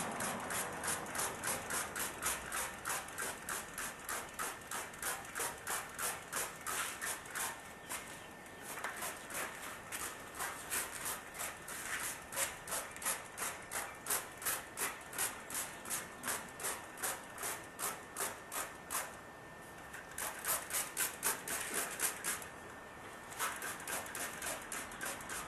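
A headlight lens being washed down with plain water to rinse off a cleaning solution: quick, rhythmic strokes, about four a second, in long runs broken by a few short pauses.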